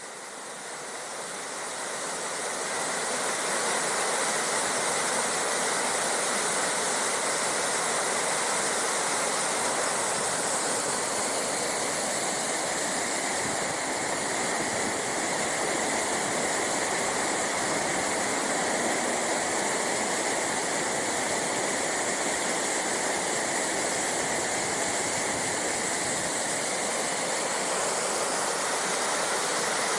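Waterfall running in flood, a normally trickling fall swollen with high water, giving a steady, continuous rush of falling water. It grows louder over the first few seconds and then holds even.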